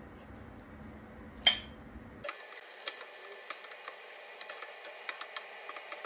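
A metal ladle clinks once sharply against a cooking pot about a second and a half in, with a brief ring, followed by a scatter of small light clicks and ticks of utensil against pot.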